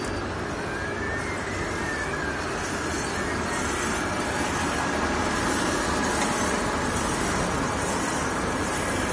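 Automatic film-wrapping packaging machine running, giving a steady mechanical noise with no distinct rhythm.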